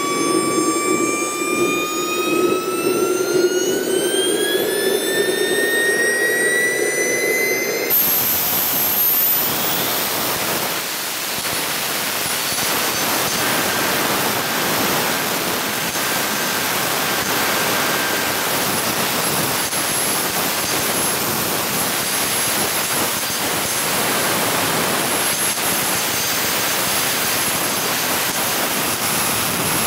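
Swiwin 240-newton model jet turbine running: a whine rising steadily in pitch for about the first eight seconds as it spools up, then a steady, loud jet roar.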